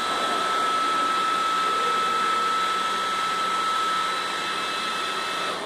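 Small electric blower motor running steadily, a rushing airflow with a high whine over it, cutting off suddenly near the end.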